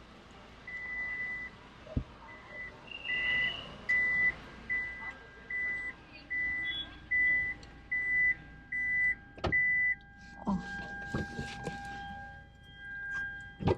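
A car's electronic warning beeper sounding a run of short, even beeps at one pitch, about one and a half a second. It stops after a sharp knock about nine and a half seconds in, and a steady electronic tone follows near the end.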